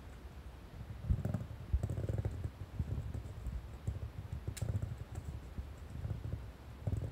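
An orange tabby kitten's paws thudding and scuffing on a tatami mat as it chases and bats a small ball, with irregular soft thuds and light clicks; one sharper click about four and a half seconds in.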